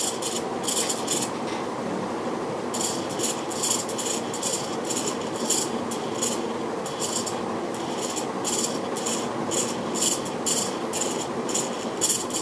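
Tail servo mount of a CopterX 450 helicopter being worked back and forth on its carbon tail boom: a repeated scratchy rattle about twice a second, with a short pause early on, over a steady hiss.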